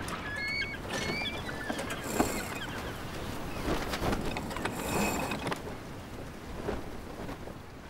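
Harbour ambience of wind and water noise at a quayside, with a few short high whistled chirps in the first second and two surges of hiss about two and five seconds in.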